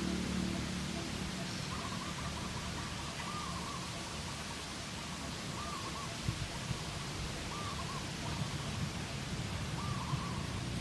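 A bird calling over and over, short arched notes repeating every second or two, over a steady outdoor hiss with a few faint clicks.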